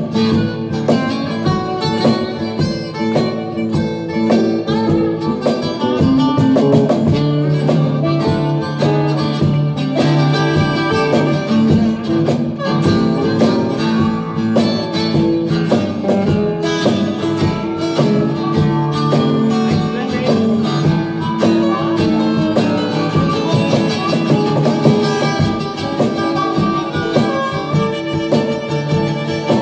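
Live band playing a rock and roll number, with guitar to the fore over a steady beat.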